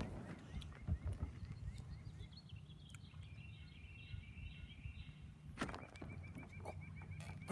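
Faint outdoor ambience: a low steady hum under a small bird's chirping, ending in a fast run of short, evenly repeated chirps, about seven a second, in the last couple of seconds. A soft thump comes just before that run.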